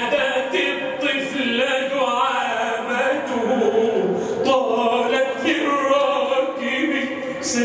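A group of men singing an unaccompanied Arabic nasheed together, drawing out long held and gliding notes on a single sung phrase.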